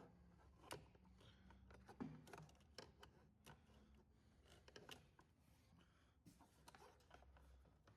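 Near silence with faint, scattered clicks and taps of hands working a throttle cable through a mower's engine housing.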